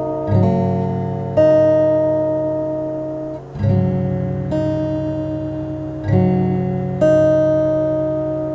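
Background music on acoustic guitar: chords strummed at a slow, even pace, each ringing out and fading before the next.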